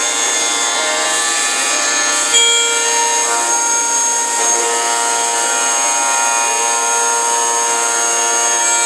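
Milling machine cutting aluminum: a steady machining noise carrying several held, ringing tones, including a strong high whine, which shift slightly about two and a half seconds in.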